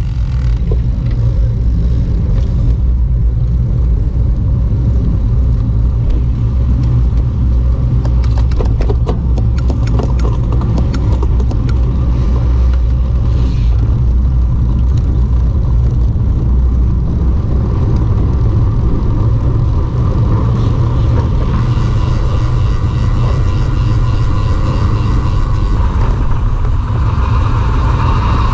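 Steady low rumble of wind buffeting the microphone of a moving road bike, with a patch of light clicks and rattles about eight to twelve seconds in.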